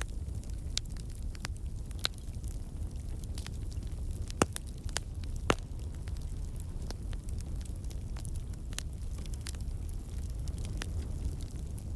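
Campfire burning: a steady low rumble of flames with irregular sharp crackles and pops of burning wood, two louder pops about four and five and a half seconds in.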